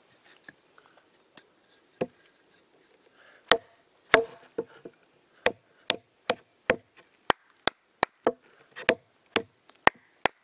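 Wooden baton striking the spine of a thin knife to split a cedar round: one sharp wooden knock about two seconds in, then a steady run of knocks, two to three a second, as the blade is driven down through the wood.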